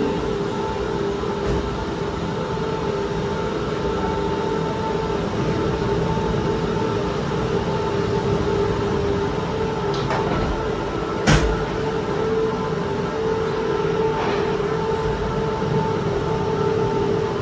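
Steady hum and rush of air inside a moving Disney Skyliner gondola cabin, with one sharp knock about two-thirds of the way through.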